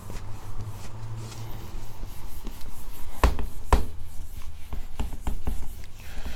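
A whiteboard being wiped with a sponge eraser: soft rubbing strokes, with two sharp knocks against the board a little past three seconds in, about half a second apart, and lighter taps later.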